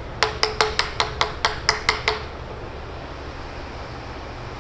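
Small hammer tapping on the end of a drain pipe fitting, about ten quick taps in two seconds, each with a short ring.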